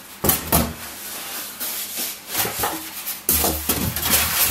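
Polystyrene foam packing pieces rubbing and scraping as they are handled and lifted out of a cardboard box, in irregular strokes that get louder near the end.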